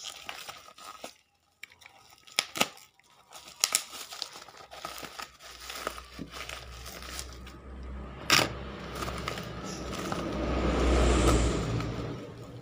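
Plastic parcel wrapping crinkling, crackling and tearing as a taped package is pulled open by hand, with a sharp snap about eight seconds in and a louder rustling swell near the end as the box is pulled free.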